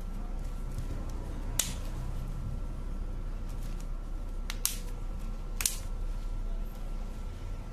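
Sharp plastic clicks as the edge of the replacement screen on a Realme C3 phone is pressed and snapped into its frame: one about a second and a half in, a quick pair about three seconds later and one more a second after that. A steady low electrical hum runs underneath.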